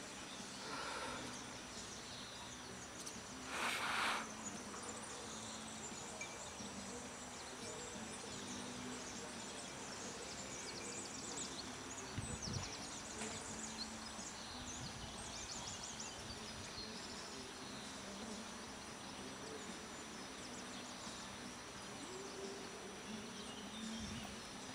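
Quiet open-air background with small birds chirping high and thin now and then, over a faint low hum. About four seconds in, a brief rushing noise is the loudest sound.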